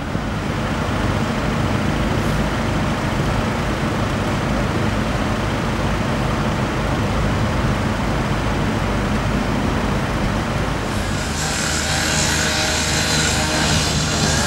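Heavy diesel machinery running steadily with a low rumble; about eleven seconds in a louder, higher-pitched hissing noise joins it.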